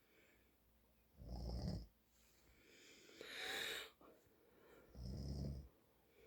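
A man snoring in his sleep: two low snores on the in-breath, about a second and about five seconds in, with a long breathy exhale between them.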